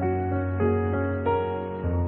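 Instrumental background music: a melody moving note by note over a held bass note, which changes to a new note near the end.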